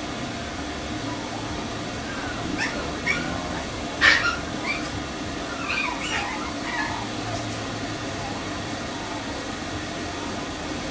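A poodle puppy crying out in short high whines, several between about two and seven seconds in and loudest about four seconds in, over the steady blowing of a stand pet dryer.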